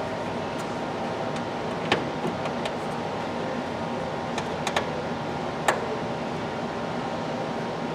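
Steady mechanical hum with a few sharp clicks and taps, about two seconds in and again around five and six seconds in.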